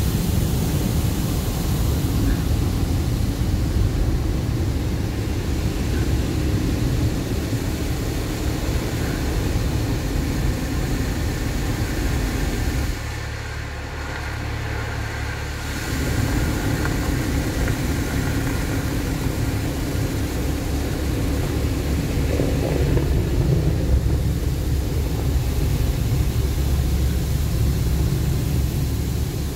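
Automatic car wash running, heard from inside the car: a loud, steady noise with a low rumble. It drops quieter for about three seconds in the middle, then picks up again.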